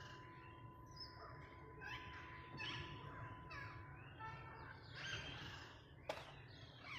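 Parrot giving harsh, raspy squawks, one about every second, with a sharp click about six seconds in.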